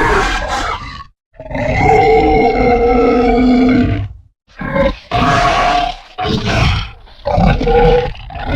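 Monster-boar creature sound effect: grunting, pitched roars in separate calls. One call ends about a second in, a long roar of about two and a half seconds follows, then a run of four shorter roaring grunts.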